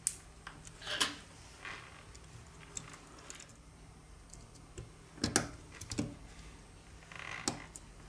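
Scattered small clicks and taps of a smartphone's motherboard being set into and pressed down on its metal mid-frame by hand, the sharpest clicks a little past halfway.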